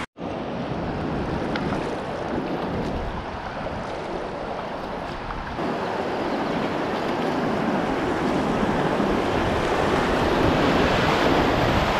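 Rushing whitewater of a river rapid, with wind buffeting the microphone. It is a steady, even roar that grows louder over the second half as the canoe nears the rapid.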